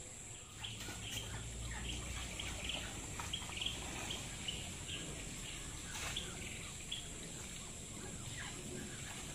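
Small birds chirping in short repeated calls, about two a second, over a steady high hiss. Light splashing from catfish thrashing at the pond's surface, stunned by an electrofishing current.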